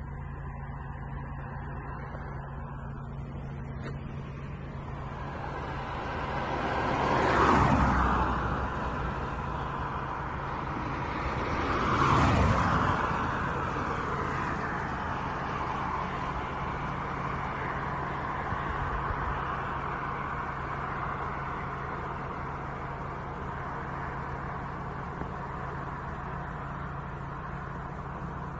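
Two road vehicles passing by, one after the other, their noise swelling and fading about seven and twelve seconds in, over a steady low hum.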